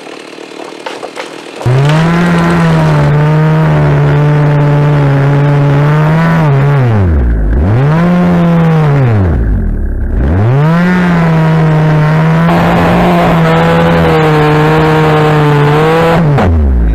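Two-stroke engine held at high revs. It drops sharply to idle and climbs back twice partway through, then cuts off abruptly near the end.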